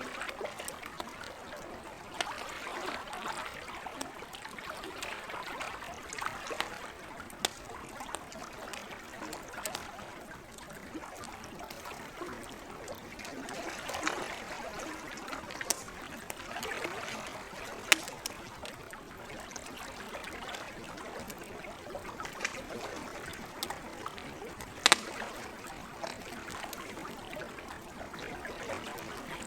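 Campfire crackling, with sharp pops scattered throughout and two louder ones in the second half, over a steady wash of gently moving lake water.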